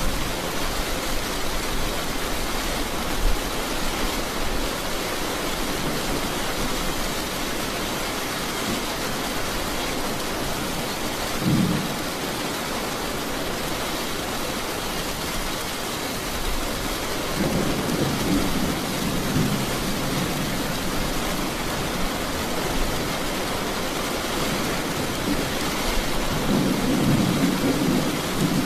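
Steady heavy rain with thunder rumbling low: a short rumble about a third of the way in, and longer rolling rumbles past the middle and again near the end.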